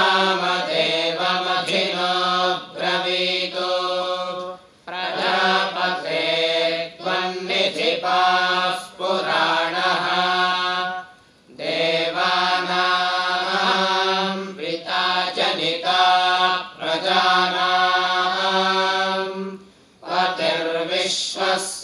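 A group of male voices chanting Vedic Sanskrit mantras in unison, verses addressed to Prajapati, recited on a few held pitches. Short breath pauses come about 5, 11 and 20 seconds in.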